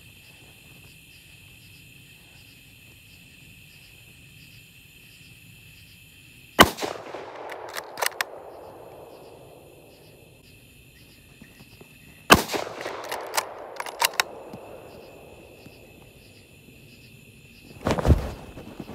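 Two rifle shots from a 6.5 Creedmoor Savage 10BA Stealth, about six seconds apart. Each is a sudden sharp crack followed by a rolling echo that dies away over a couple of seconds, with a few sharper clicks after it. A duller thump comes near the end, all over steady insect chirping.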